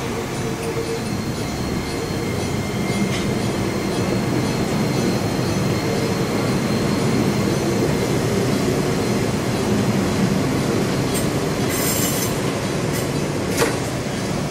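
Enoshima Electric Railway (Enoden) electric train passing close by on street-running track: a steady rumble of wheels and running gear with a faint high steady whine. There is a brief hiss about twelve seconds in and a sharp click just after it.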